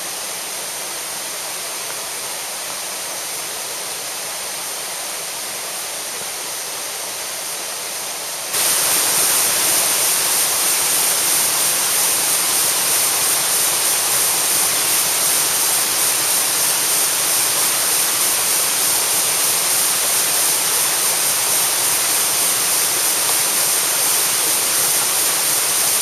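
Small waterfall running high after a typhoon: a steady rush of falling water that suddenly gets louder about eight and a half seconds in.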